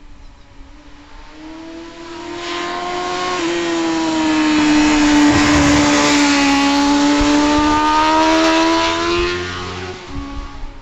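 A 1994 Honda CBR600F2's inline-four engine, fitted with a Yoshimura RS3 exhaust, running at a steady high pitch as the bike rides past through a curve. It grows louder over the first few seconds, jumps slightly in pitch about three and a half seconds in, and fades away near the end.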